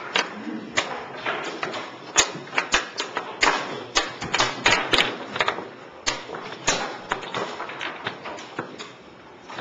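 Wooden chess pieces clacking down on a board in quick, irregular succession, several sharp knocks a second, thickest in the middle of the stretch.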